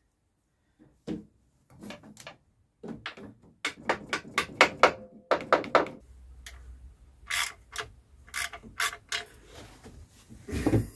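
Ratchet spanner clicking in short, irregular runs as nuts are tightened to draw the engine up onto the gearbox bellhousing.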